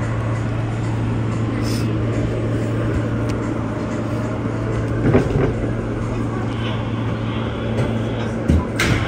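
New York City subway car running along the track, heard from inside: a steady motor hum over wheel-on-rail rumble. There is a short knock about five seconds in and a couple of sharper clunks near the end.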